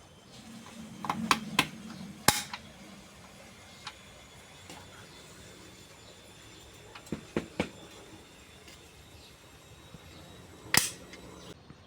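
Scattered sharp clicks and knocks from hard objects: three in the first couple of seconds, a quick run of three about seven seconds in, and one more near the end.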